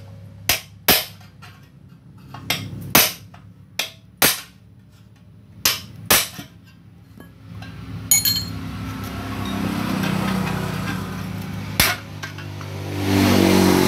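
Hammer blows on a metal rod driven into a chrome motorcycle muffler to knock out its baffles. The first seven seconds hold about nine sharp metallic strikes, each ringing briefly. After that comes a duller, steadier scraping and rumbling with one more sharp strike about twelve seconds in.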